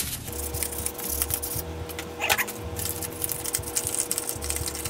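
Sandpaper rubbed by hand over a small wooden tool handle in short, irregular scratchy strokes, smoothing off rust and splinters. A steady low hum runs underneath.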